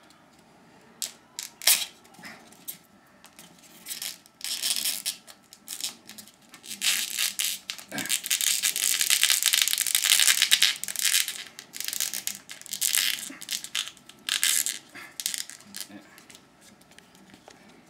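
Thin plastic packaging crinkling and rustling as it is handled, in irregular bursts that are most continuous in the middle, with a few sharp clicks near the start.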